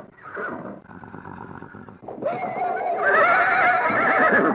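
Horse whinnying: softer noisy sounds for the first two seconds, then one long, loud neigh with a wavering pitch, starting about two seconds in.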